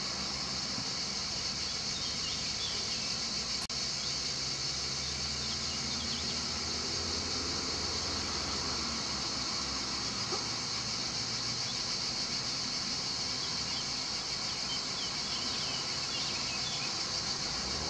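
Steady, dense chorus of cicadas buzzing in summer heat, with a few faint bird chirps over it and a brief dropout in the sound about four seconds in.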